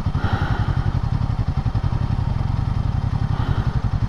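Royal Enfield Himalayan 450's single-cylinder engine idling with an even, rapid putter.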